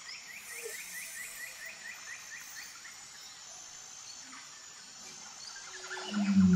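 Outdoor nature ambience: a rapid trill of short repeated chirps for the first couple of seconds over a steady high, thin insect-like hum. Near the end a louder low sound comes in, with another chirping trill.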